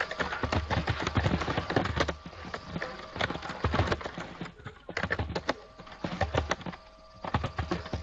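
Computer keyboard typing: rapid, irregular clicks and knocks, with two short pauses, one about halfway through and one near the end.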